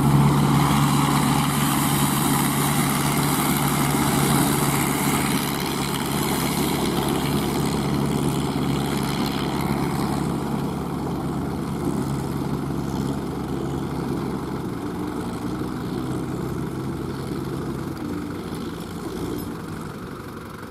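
Kubota ZL3001 tractor's four-cylinder diesel engine running steadily under load, at an even pitch, growing gradually fainter over the second half.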